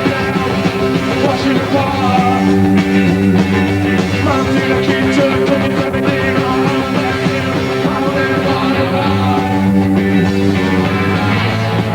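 Punk rock band playing without vocals: loud, steady sustained chords over a low bass line, continuing without a break.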